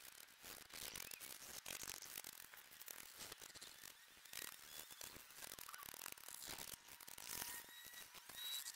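Faint, uneven scratching of a small thin cut piece being sanded by hand on a sheet of sandpaper.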